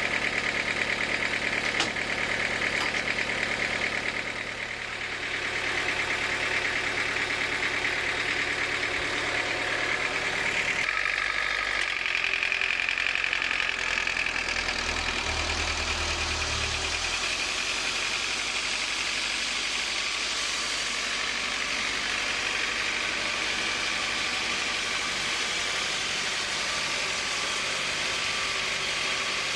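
Sawmill machinery running steadily: an engine-like drone under a high whine. The low hum changes about eleven seconds in, with a short low rumble a few seconds later.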